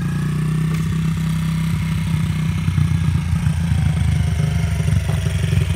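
Dirt bike engine idling just after being started, a steady low running note that turns a little choppier about halfway through.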